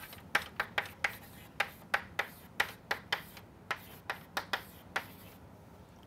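Chalk tapping and scratching on a chalkboard as words are written: an irregular run of sharp taps, several a second, that stops a little before the end.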